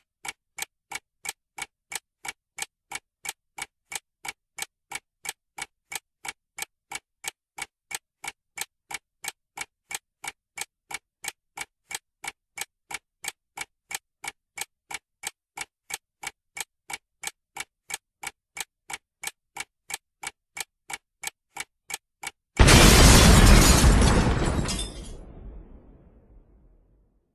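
Sound effect of a clock ticking off the seconds, about three sharp ticks a second, then a bomb explosion that cuts in suddenly near the end, the loudest sound, and dies away over about four seconds.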